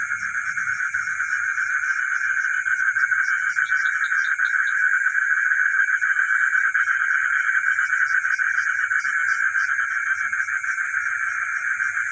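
Night chorus of frogs calling continuously, a dense steady trilling with a quick pulsing call lower down and a steady high-pitched whine above it. About four seconds in, a short run of quick chirps cuts through.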